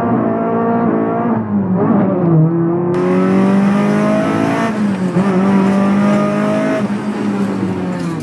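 Honda Civic's four-cylinder engine heard from inside the car under hard acceleration. The pitch climbs steadily and then drops sharply about three times, at each gear change or lift-off.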